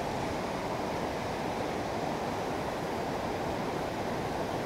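Steady rushing of a swollen mountain stream cascading in white water over boulders.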